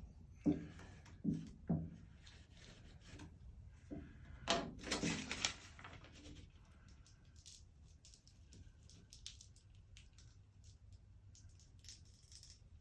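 A felt-covered squeegee and transfer tape being worked over vinyl lettering: three soft knocks in the first two seconds, then a rougher rubbing sound of about a second and a half around four seconds in, then only faint handling.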